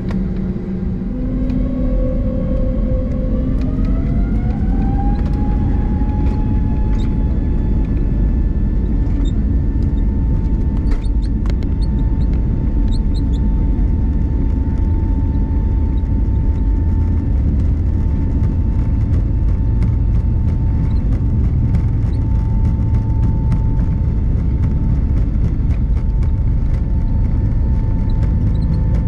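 Airbus A320neo jet engines heard from inside the cabin, spooling up for takeoff: a whine rises in pitch over a few seconds, then holds steady over a loud rumble, with small rattles and knocks as the aircraft rolls.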